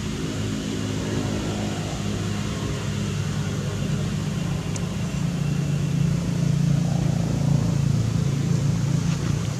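A motor vehicle engine running with a steady low hum, growing louder about halfway through.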